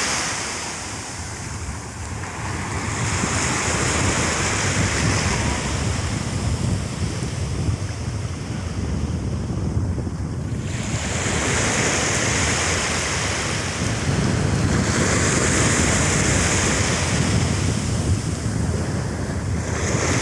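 Surf washing on a sandy shore, its hiss swelling and fading several times, with wind rumbling on the microphone.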